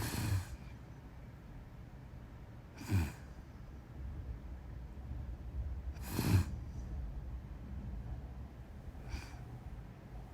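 A sleeping person snoring and breathing heavily: four noisy breaths about three seconds apart. The first and third are louder, with a low rattle.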